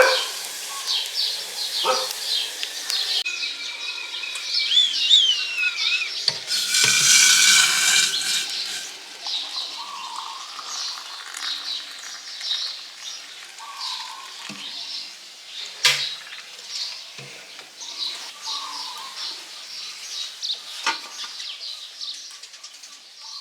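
Small birds chirping steadily, with one call gliding up and down a few seconds in. Occasional sharp clinks and knocks of pots or cutlery, and a loud hiss for about two seconds about a third of the way through.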